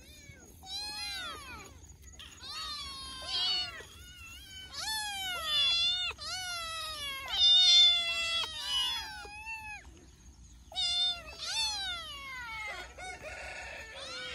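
Several young kittens meowing over one another, a run of high calls that each fall in pitch, loudest about halfway through.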